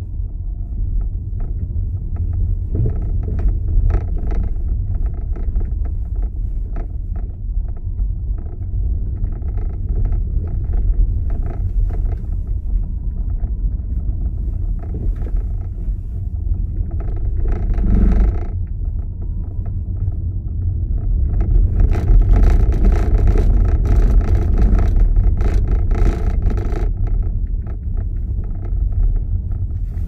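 A car driving, with a steady low rumble of road and engine noise and scattered light crackles; it grows louder and brighter about two-thirds of the way through.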